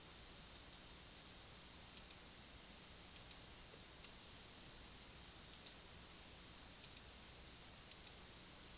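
Computer mouse clicking: short sharp clicks, mostly in close pairs, about seven times a second or so apart, over a faint low hum of near silence.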